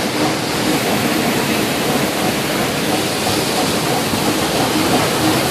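Steady rushing of water around a rafting ride's round raft, a loud even noise with no breaks.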